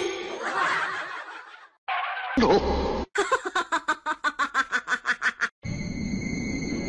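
A person laughing in quick, evenly spaced bursts, about five a second, in the middle of a run of short clips cut together. Near the end it gives way to a steady hiss.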